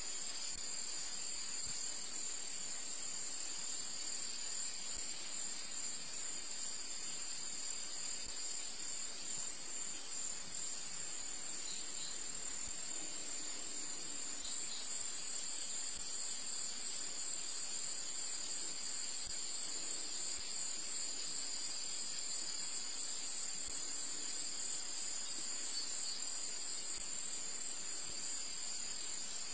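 Steady, high-pitched chorus of insects in two unbroken tones over a faint hiss.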